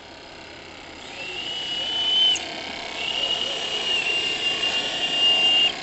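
Steam whistle on a radio-controlled model steam trawler blowing two blasts of one high steady note. The first starts about a second in and lasts about a second, rising a little in pitch as it comes on. The second is longer, about two and a half seconds.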